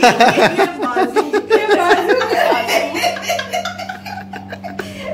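People laughing heartily, a woman's quick repeated laughs loudest in the first couple of seconds and tailing off toward the end.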